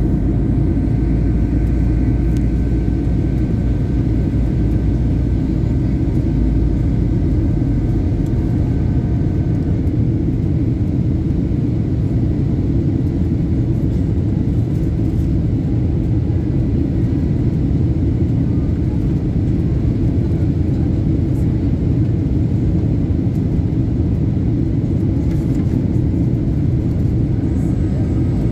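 Steady low rumble of an airliner's cabin noise from its engines and airflow, with faint steady tones that fade out about ten seconds in.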